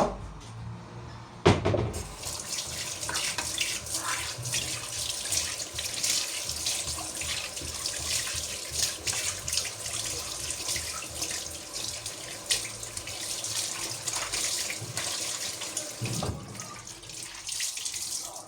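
Water running and splashing steadily, starting just after a sharp knock about a second and a half in and stopping near the end.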